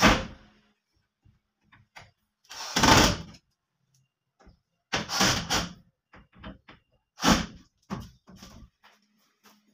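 Wooden wardrobe door and its fittings being handled: a series of separate bumps, knocks and scrapes a second or two apart, loudest at the start and about three seconds in.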